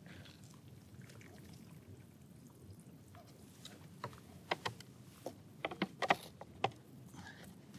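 Freshly boiled water poured from a Jetboil cooking cup into a small container: a faint, steady trickle. From about four seconds in, a run of sharp clicks and knocks as the pot and stove are handled.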